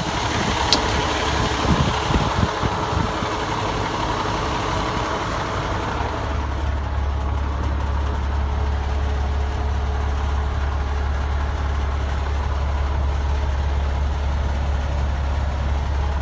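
Fire engine's diesel engine idling steadily. The cab door latch clicks about a second in. After about six seconds the idle is heard from inside the cab, as a deeper, more muffled low rumble.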